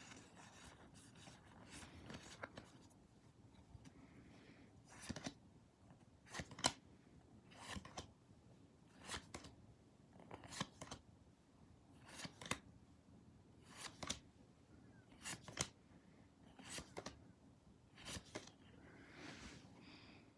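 Pokémon trading cards being flipped through one at a time: about ten short card slides, one roughly every second and a half, after a few seconds of soft rustling.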